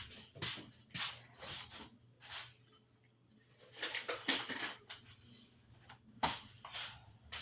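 A pet licking its paws: a run of short wet licks, a quiet pause of about a second near the middle, then more licks in quick succession.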